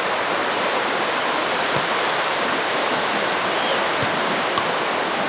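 Steady rushing hiss of ocean surf, unchanging throughout.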